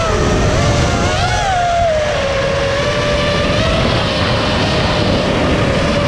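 FPV quadcopter's electric motors and propellers whining, the pitch swelling briefly about a second in and then holding steady, over a rush of wind on the onboard camera.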